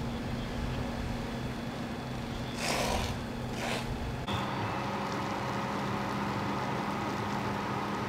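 Fire apparatus engine running steadily at a fire scene, a low hum with a haze of noise over it, broken by two short bursts of hiss about three seconds in. The background changes abruptly a little after four seconds but stays a steady engine-like hum.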